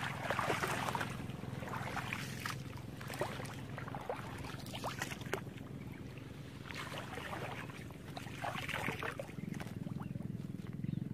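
Water splashing and sloshing as a person wades through shallow muddy water, in irregular surges, over a steady low rumble.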